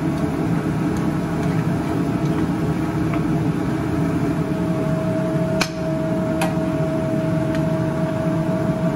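Steady mechanical kitchen hum with a constant whine, over a honey-citrus glaze bubbling in a skillet on a gas burner. Metal tongs click sharply against the pan a couple of times, a little past halfway, as chicken pieces are lifted out.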